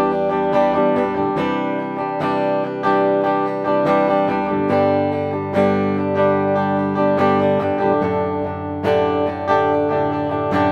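LTD EC-401FM electric guitar, an active-pickup guitar, played with both pickups combined in a clean tone: strummed and picked chords ringing on one after another, a new attack about every half second.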